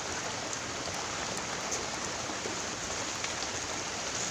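Steady hiss of water, even and unbroken, with a few faint ticks.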